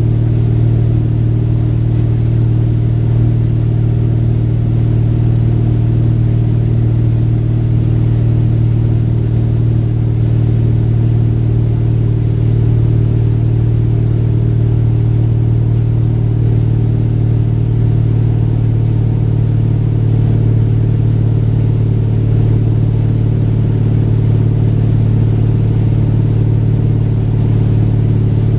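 Tow boat's engine running steadily at wake-surfing speed: a constant low drone that holds the same pitch, over a fainter hiss.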